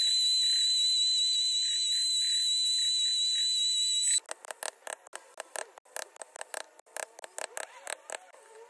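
Steady high-pitched whine of a small power tool running, cutting off abruptly about four seconds in. It is followed by a run of quick, irregular light clicks and taps.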